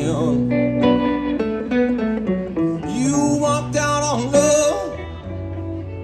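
Live amplified music from a duo: an acoustic guitar and a semi-hollow electric guitar playing together, with a voice singing over them in the second half.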